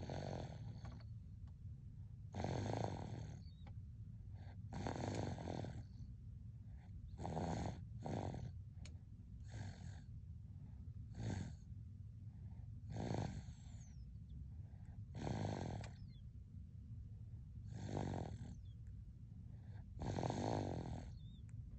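An eight-month-old baby snoring in her sleep, one snore about every two seconds, around ten in all, over a steady low hum.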